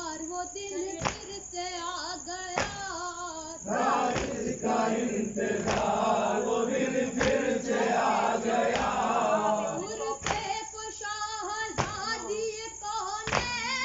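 Mourners reciting a Muharram nauha: a lead voice sings the verse, and the group joins in a louder chorus through the middle. Beneath it, a steady beat falls about every second and a half, the rhythm of matam, chest-beating in unison.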